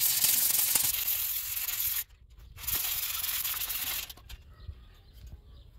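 Sandpaper, 220 grit, rubbed by hand over cured acrylic putty on an EPS foam board for the final smoothing: a dry, scratchy hiss. It breaks off briefly about two seconds in, starts again, and stops about four seconds in.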